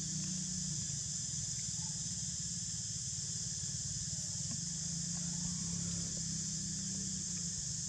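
Steady outdoor ambience: an even, high-pitched insect chorus over a low steady hum, with a few faint short calls.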